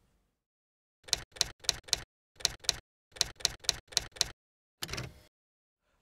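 Sharp mechanical clicks over dead silence, an edited-in sound effect: four quick clicks, two more, then five, each group about three clicks a second. A short rasping sound follows near the end.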